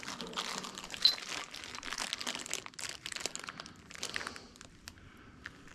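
Hardware parts being handled and fitted during assembly: crinkling and rustling with many small clicks, and one sharp metallic clink with a brief ring about a second in.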